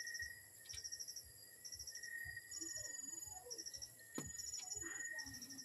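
Faint background chirping: short high trills of a few quick pulses, repeating about once a second. A single sharp click about four seconds in.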